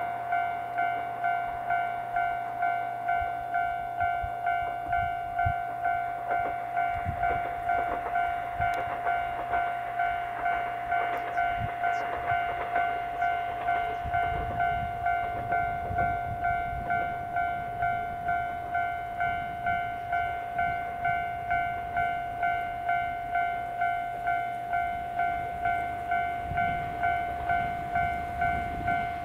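Japanese railway level-crossing alarm ringing its repeated electronic ding, about one and a half strikes a second: the crossing signalling that a train is approaching.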